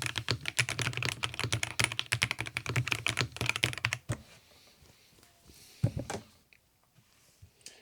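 Fast typing on a Keychron P6 Ultra full-size aluminum mechanical keyboard: a dense run of key clacks that stops about four seconds in. A few single knocks follow near six seconds.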